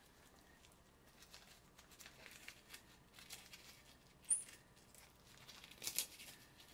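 Faint crinkling and rustling of a disposable diaper being unfolded and its tabs pulled by hand. A sharp click comes a little past halfway, and a louder crinkle near the end.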